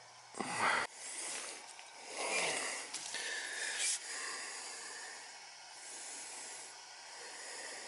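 Water and trapped air sputtering out of a purge hose on a hot-water heating system's drain valve as air is purged from the hydronic zone. It comes in irregular hissing spurts, the loudest about half a second in.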